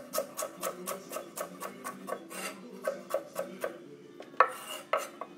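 Chef's knife chopping carrot on a wooden cutting board: quick, even strokes about five a second, then a short pause and two harder knocks near the end.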